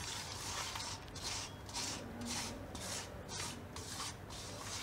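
Silicone spatula stirring milk and powdered sugar in a stainless steel bowl: a faint run of rhythmic scraping swishes, about two strokes a second, as the sugar dissolves.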